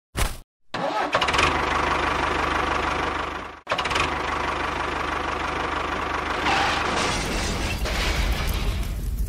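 An engine starts: a brief cranking burst, then it catches under a second in and runs steadily with a deep rumble. It drops out for an instant about three and a half seconds in, then runs on.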